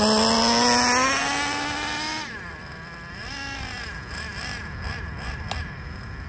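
Traxxas TRX 3.3 two-stroke nitro engine in an RC truck accelerating, its pitch climbing steadily for about two seconds. It then drops off and runs on fainter with a wavering pitch. The engine is being broken in and tuned, with the high-speed needle just leaned another 1/8 turn to try to get the truck to shift into second gear.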